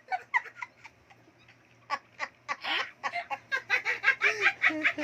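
A person laughing in quick, short, high-pitched bursts, about four or five a second, pausing briefly near the second second and then starting up again.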